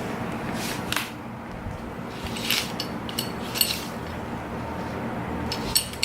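Light metal clinks and taps, a few of them ringing briefly, about a second in, in a cluster around the middle and once near the end, over a steady low hum.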